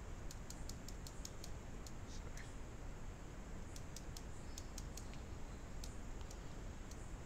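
Light clicks from a computer mouse, in several quick runs of a few clicks each, over a faint steady background hiss.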